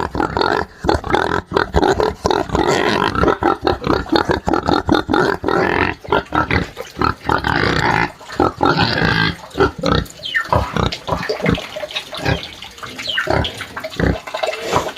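Pig squealing in distress, continuous at first and breaking into shorter separate squeals from about ten seconds in.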